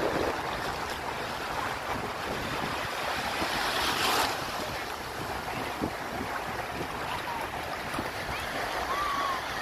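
Sea surf washing and breaking, with wind buffeting the microphone; the wash swells loudest about four seconds in.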